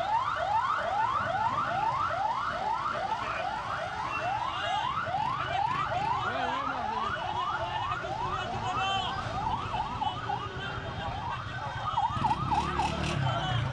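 Ambulance siren in a fast yelp: quick rising sweeps repeating about three times a second. About two-thirds of the way in, it breaks into an unsteady up-and-down wavering.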